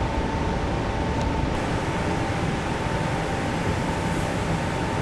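Spray-booth ventilation fan running with a steady whine over its rushing noise, joined about a second and a half in by a faint extra hiss from a compressed-air paint spray gun.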